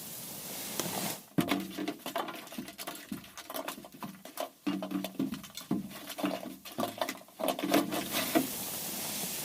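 Irregular close-up pattering, tapping and rustling of handling, starting about a second in and stopping near the end, over a steady hiss.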